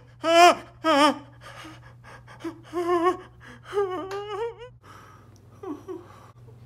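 A man gasping and whimpering in fright, as on waking from a nightmare: sharp, loud gasps in the first second, then shaky, wavering whimpers a few seconds in that die down to weaker breaths near the end.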